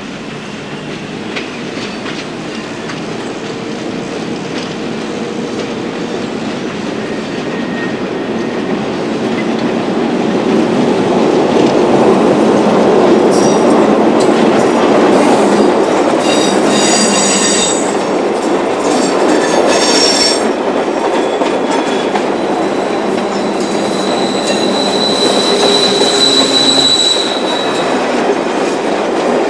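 Sydney single-deck 'red rattler' electric train approaching round a curve and passing close by, its rumble growing louder, with wheels clacking over the rail joints. From about halfway through the wheels squeal in high, shifting tones, and near the end there is a steady high squeal. Not much gear noise.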